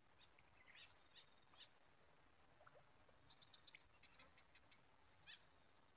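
Near silence: faint insect chirps and clicks scattered over a steady high-pitched insect drone.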